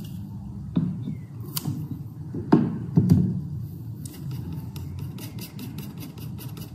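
An oil painter's brush and paint being handled on a palette: a few sharp taps and knocks in the first three seconds, then quick, even scrubbing strokes of the bristles working paint into the textured surface.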